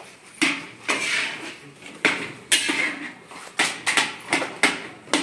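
A long-handled metal spatula scrapes and clanks against a large metal kadhai as a big batch of food is stirred. The strokes come irregularly, about two a second.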